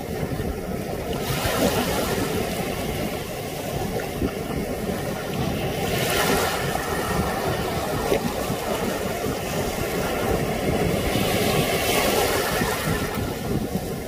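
Small waves washing up over sand and around shoreline rocks, a continuous wash that swells three times, about a second and a half, six and twelve seconds in.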